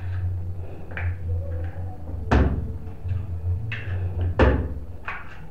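Eggs being cracked against the rim of a mixing bowl: a faint knock about a second in, then two sharp knocks about two seconds apart, over a steady low hum.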